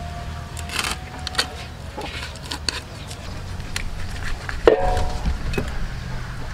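Irregular knocks, clicks and crackles as a whole raw duck is split open with a cleaver and pulled apart by hand on foil. A short pitched sound comes in about five seconds in.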